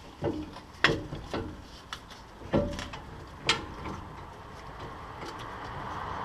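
About five sharp knocks and clunks in the first four seconds, then quieter handling: brake caliper and tools being handled and fitted back over the new rotor.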